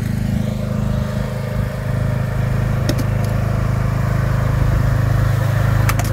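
A small engine running steadily on the trailer-mounted drum screen and pump unit, a continuous low drone. Two light clicks about three seconds apart.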